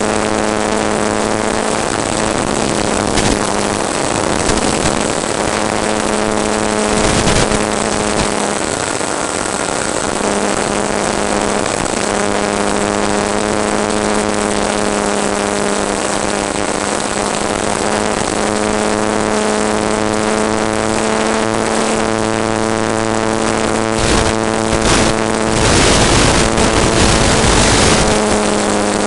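Model airplane's motor and propeller running at a steady pitch, heard from the aircraft's onboard camera, dropping out briefly a few times. Wind rushes over the microphone for a moment about seven seconds in and again for several seconds near the end.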